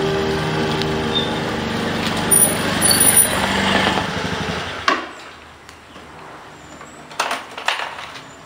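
Small motor scooter engine running as the scooter rolls up and stops, then cutting off about five seconds in; a few sharp knocks near the end as the side stand goes down.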